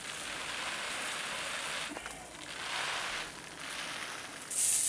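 Water spraying from a garden hose spray gun onto a straw-mulched soil bed, a steady hiss that swells and fades in waves as the spray is moved. Near the end it turns suddenly louder and higher.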